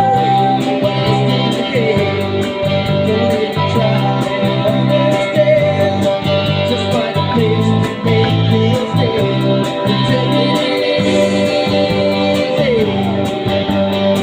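Guitar-led band music with a steady pulsing bass line under strummed guitar, and lead notes sliding in pitch above.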